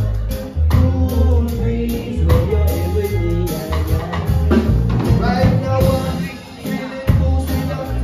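Live band playing an upbeat song, with a drum kit, acoustic and electric guitars and a bass line under singing. The drums and bass drop out for about a second near the end, then come back in.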